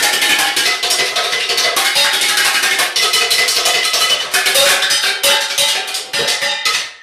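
Saucepans beaten rapidly with a stick: a fast, uneven run of ringing metal strikes that thins out into separate hits near the end.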